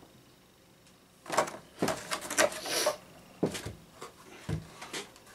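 Cardboard-and-clear-plastic figure packaging being handled and opened. A quick run of rustles, crinkles and clicks starts about a second in, followed by a couple of separate sharper knocks.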